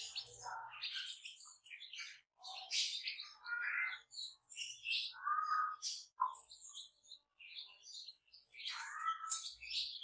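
Newborn chicks peeping in short, high, repeated chirps as they feed, with a few longer, lower calls from the mother hen among them.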